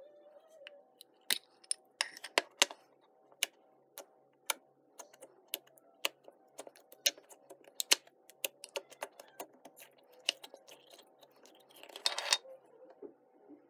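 Orange glitter slime in a small clear plastic tub being opened, poked and pulled out by hand: a run of sharp, irregular clicks and pops, with a louder crackly stretch about twelve seconds in as the slime is lifted out of the tub.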